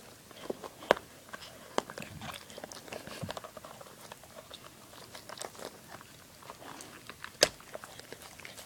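A dog chewing and biting into a squeaky toy ball, trying to tear the squeaker out: scattered crunching and clicking with a few sharp snaps.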